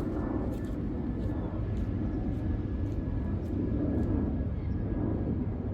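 Steady low background rumble with a few faint clicks and taps scattered through it.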